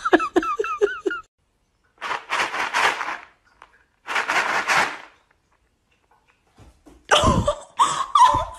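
A husky giving a quick run of short, high yips that bend in pitch. Then come two breathy hissing bursts and, near the end, harsh rasping cries.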